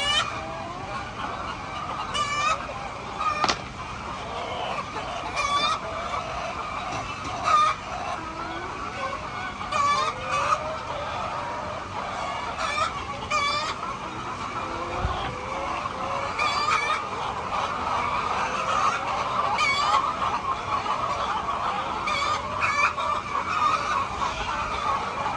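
A large flock of chickens calling all at once in a steady din, with short, sharp squawks standing out above it every second or two.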